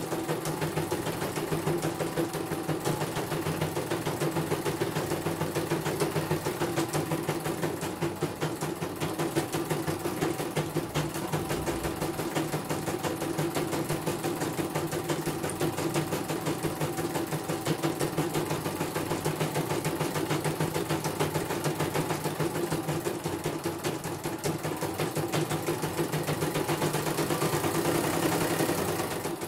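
CNY portable computerized embroidery machine stitching a design, its needle running in a fast, even rhythm of strokes that stops at the very end.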